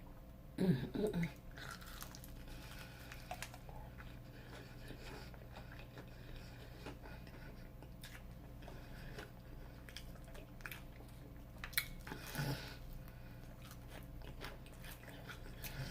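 Close-miked chewing of crunchy Flamin' Hot Cheeto-breaded fried food: faint crunches and mouth clicks, with louder moments about a second in and again near the end.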